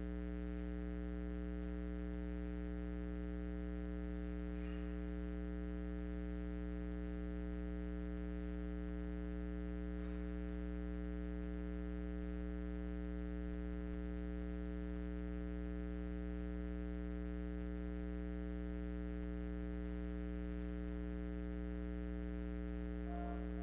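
Steady electrical mains hum with a ladder of many overtones, unchanging throughout. Instrumental music starts up right at the end.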